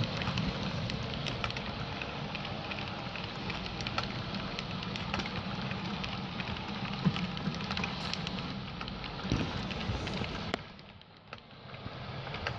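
Model train coaches rolling past, their metal wheels clicking and rattling over the rails and track joints in a dense crackle, over a steady low hum. The sound fades briefly for about a second near the end, then comes back.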